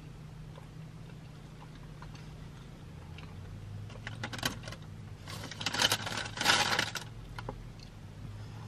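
Paper bakery bag crinkling and rustling as it is handled, in a run of crackles from about four to seven seconds in, over a low steady hum.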